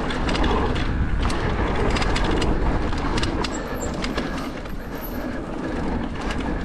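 Haibike AllMtn e-mountain bike rolling down a dirt flow trail: steady tyre and wind rumble, with frequent clicks and rattles from the bike over the bumps.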